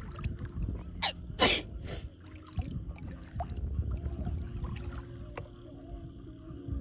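Shallow lake water splashing and trickling a few times, the loudest splash about a second and a half in, over a low rumble.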